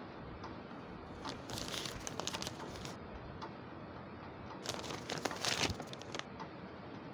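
Newspaper pages rustling and crackling as a large newspaper is opened and spread out, in two bursts, about a second in and again around five seconds in.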